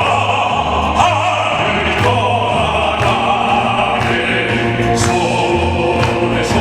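Classical, operatic-style singers performing a song together over instrumental accompaniment, with long held notes above a steady low bass line.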